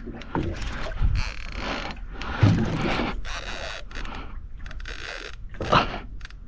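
Fishing reel under heavy load from a big fish pulling for the bottom: ratcheting clicks from the drag and the gears, in irregular spurts over a low rumble.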